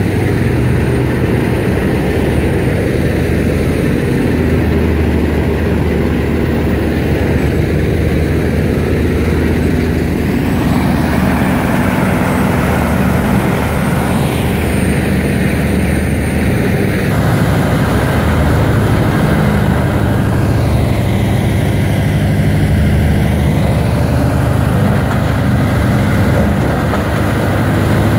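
Bandit Beast horizontal grinder running steadily under load, its Cat diesel engine humming as the machine grinds wood down to sawdust.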